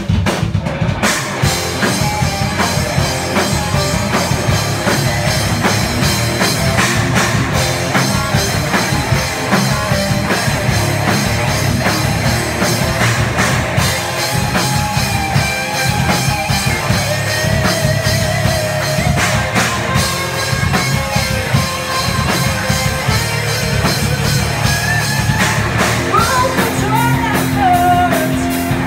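Live rock band playing: electric guitars, bass guitar and drum kit, with a woman's singing voice coming in near the end.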